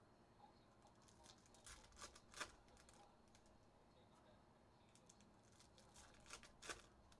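Near silence, with two brief clusters of faint clicks and rustles as trading cards and their wrappers are handled: one about two seconds in and another near the end.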